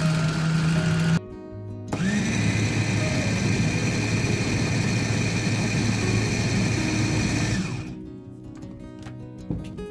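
Electric blender running, stopping about a second in, then starting again with a rising whine and running steadily for about six seconds before it stops. Background music plays throughout.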